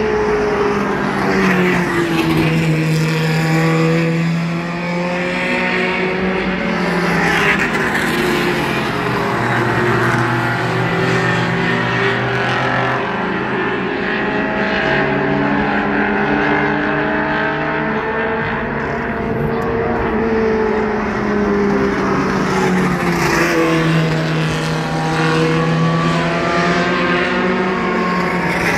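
Several mini stock race cars running laps together, their engines overlapping. The pitch falls in long sweeps as they slow for the turns and rises again as they accelerate down the straights.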